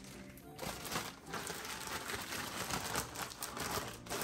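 Plastic zip-top bag crinkling and rustling as it is pulled open and handled with chicken and marinade inside, starting about half a second in.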